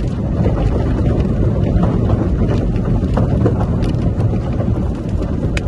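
Steady low rumble of a vehicle driving on a dirt road, with wind noise, heard from inside the cab. A few sharp ticks are scattered through it.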